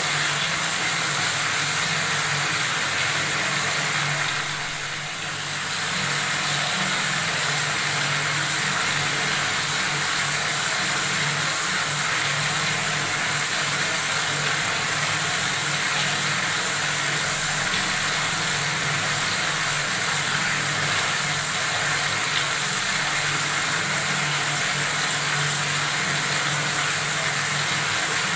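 Water running steadily from a faucet, a continuous splashing hiss with a low hum underneath, dipping briefly about five seconds in.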